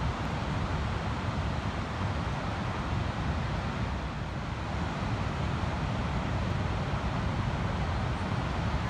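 Ocean surf breaking and washing along a sandy beach: a steady wash of noise, with no single wave standing out.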